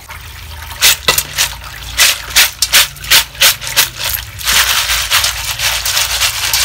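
Freshwater snail shells (ốc đắng) clattering against each other in a woven bamboo basket as they are stirred by hand under a running tap. From about four and a half seconds the tap water pours steadily over them, with the shells still clicking.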